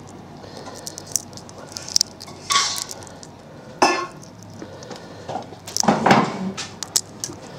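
Cooked crayfish shell being peeled and cracked by hand: a scatter of small clicks and crackles, with a few louder clinks and knocks about two and a half, four and six seconds in.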